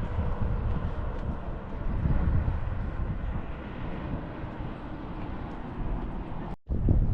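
Bus engine running, a steady low rumble with road or vehicle noise; the sound cuts out abruptly for a moment near the end.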